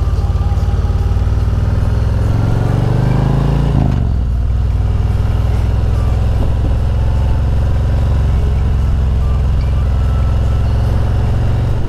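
Harley-Davidson Road Glide's V-twin running through Rinehart true-dual exhaust while riding. The engine note climbs for a couple of seconds, drops sharply about four seconds in as at an upshift, then holds steady at cruise.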